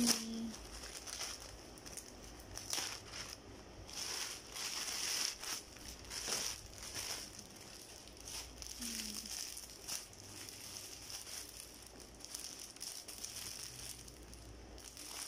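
Plastic packaging crinkling and rustling in irregular bursts as a plastic parcel mailer and plastic-bagged items are handled, busiest a few seconds in.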